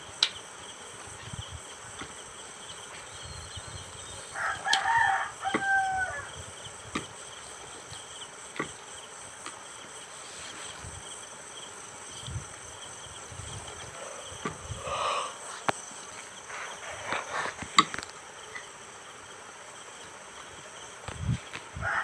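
A rooster crows once about four to five seconds in, over a steady high drone of insects such as crickets. Scattered light clicks and knocks come from hands working a hose fitting on a pump inlet.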